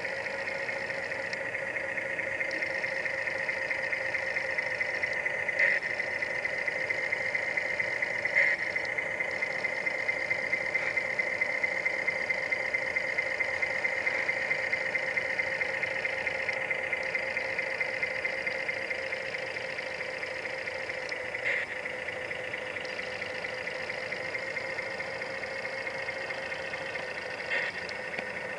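Radio-controlled Scania model tractor-trailer running: a steady, even-pitched mechanical hum with a fine rapid pulse, like an idling engine. A few short clicks break in at intervals.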